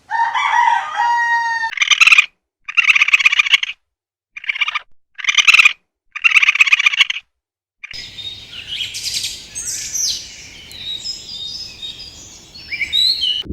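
A rooster's crow trails off, then comes a run of about five short, harsh, noisy calls. From about eight seconds in, many small birds chirp and twitter in high, overlapping calls.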